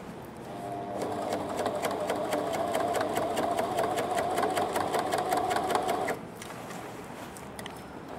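Domestic sewing machine stitching through a folded denim hem: the motor hums with a rapid, even ticking from the needle. It starts about half a second in and stops abruptly about six seconds in.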